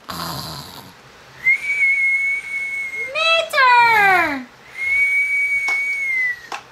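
Cartoon-style snoring for a sleeping toy: a long steady whistle, then a voiced snore gliding downward in pitch, then a second long whistle. A couple of small clicks come near the end.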